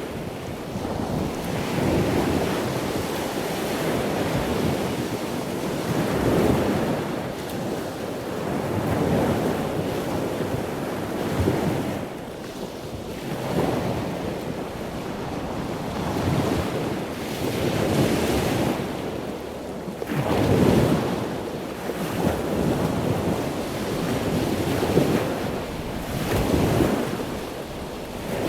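Ocean waves washing in slow swells, rising and falling every few seconds.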